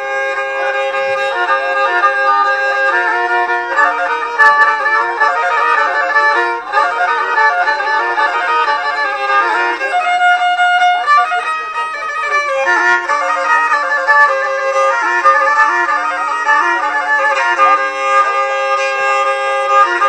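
Black Sea kemençe, a bowed folk fiddle, playing a fast instrumental melody of Black Sea folk music, the notes changing several times a second.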